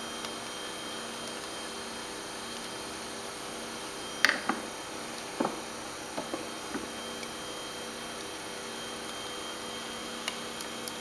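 Electric pottery wheel running with a steady motor hum as it spins the clay. A few light knocks and clicks come between about four and seven seconds in, and once more near the end.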